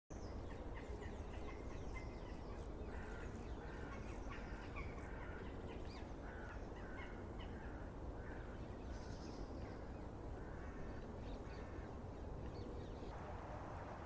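Crows cawing, many short calls repeated in quick groups over a steady low rumble. Near the end the calls stop and the background turns to a hissier outdoor noise.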